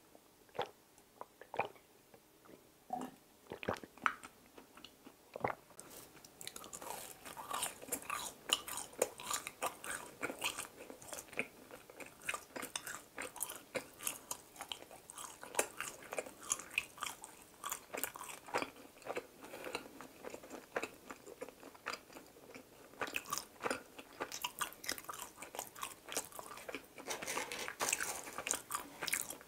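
Close-miked eating sounds: a few sparse mouth clicks and swallows at first, then from about six seconds in steady chewing of donut, a dense run of small crisp, wet clicks.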